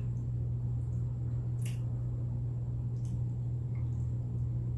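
A steady low hum with a few faint short clicks, one before two seconds in and two more around three seconds in.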